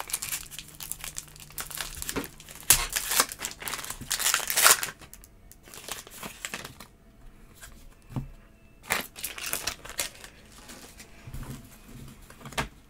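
Black foil wrapper of a football trading-card pack being torn open and crinkled as the cards are pulled out. It comes in a string of crackling bursts, densest in the first five seconds, with more around nine seconds in.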